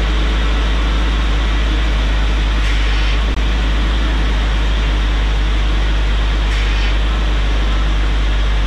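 Jeep Cherokee XJ engine running while its new full hydraulic steering is cycled back and forth to bleed air from the system. It makes a steady low hum and hiss, with short louder hisses about three seconds in and again near six and a half seconds.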